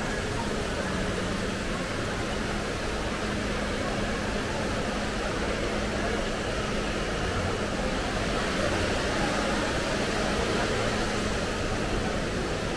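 Steady background noise of a large public space: an even hiss with a faint low hum and no distinct events.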